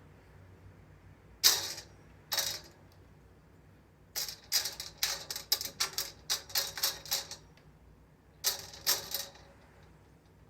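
Curtain runners clicking and rattling in a curtain rail as a kitten bats at them. There are two short rattles, then a run of quick clicks lasting about three seconds, then another short burst near the end.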